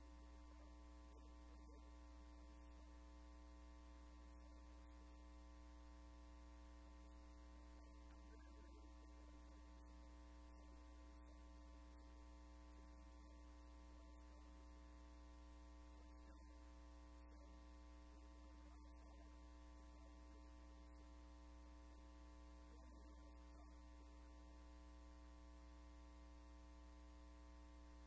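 Near silence with a steady electrical mains hum and its overtones.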